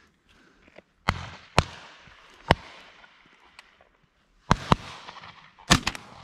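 A string of shotgun shots, about seven, fired at pigeons flying over: two about a second in, one near the middle, a pair about four and a half seconds in, and a quick cluster near the end. Each shot rings on with a trailing echo across the open fields.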